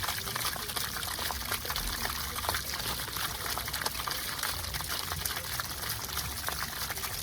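Water pouring and splashing steadily from an open water supply main, still under mains pressure, with many small splashes through the stream.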